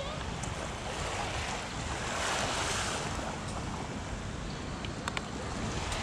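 Small sea waves washing on a sandy beach, swelling about two seconds in, with wind rumbling on the microphone.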